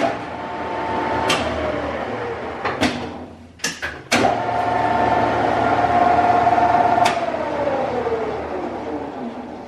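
Colchester Student lathe's three-phase motor switched on and off twice with sharp clunks of the contactor. Each time it runs at a steady whine, then winds down with a falling whine as it coasts to a stop. The newly fitted contactor is now starting and stopping it properly.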